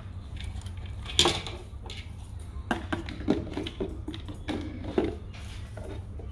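Handling noise: sharp plastic clicks and knocks as a drone battery and a charger with its cable are picked up and moved about on a cardboard box. The loudest knock comes about a second in, then a run of smaller clicks and taps between about three and five seconds, over a steady low hum.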